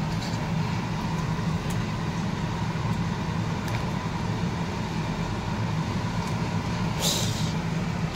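Steady low mechanical hum, with a short hiss about seven seconds in.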